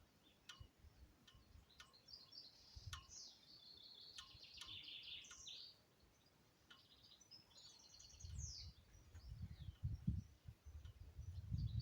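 Faint songbirds chirping and singing: scattered sharp chirps, a warbled phrase a few seconds in and fast trills later on. From about two-thirds of the way through, low gusts of wind rumble on the microphone.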